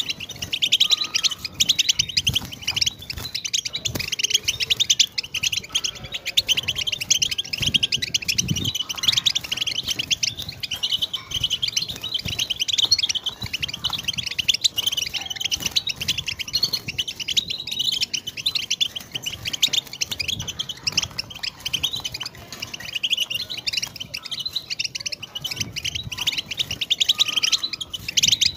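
European goldfinch singing: a long, continuous song of rapid, high twittering notes that runs on without pause.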